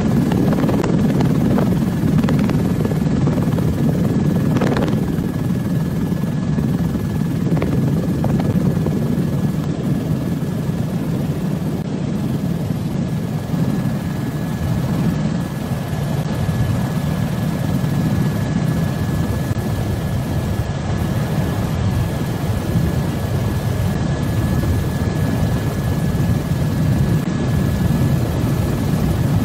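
Helicopter engine and rotor noise heard from on board: a steady low rumble with a thin, steady high whine over it.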